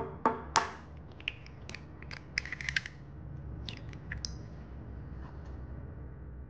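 Kitchen handling sounds: a quick run of sharp clicks and taps, some with a short ring, through the first three seconds and a few more around the middle, over a steady low hum.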